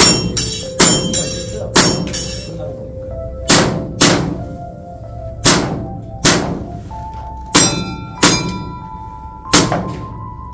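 Airsoft pistol firing about ten shots, each a sharp pop, several of them in quick pairs.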